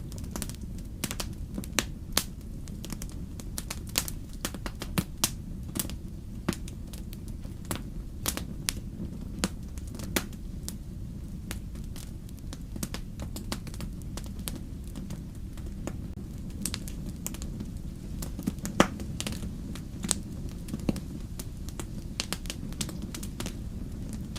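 Wood fire burning in a fireplace, crackling with frequent irregular sharp pops over a steady low rumble of the flames; one pop a little past the middle stands out as the loudest.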